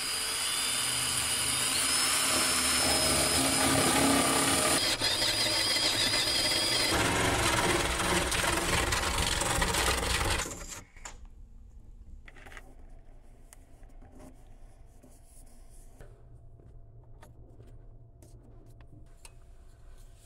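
Cordless drill driving a Forstner bit into a wooden desk panel for about ten seconds. The motor whines steadily and the bit makes a rough cutting noise as it bores the flat-bottomed hole, with the whine stepping up slightly about two seconds in. The drilling stops abruptly, and after it only faint, scattered clicks are heard.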